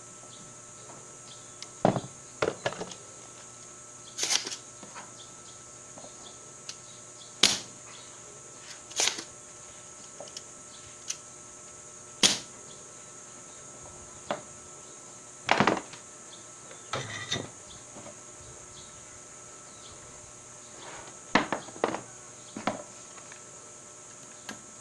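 Irregular sharp clicks and clacks of desoldering work, about a dozen in all: a spring-loaded desoldering pump snapping and small tools being handled on the bench. A steady high insect drone runs underneath.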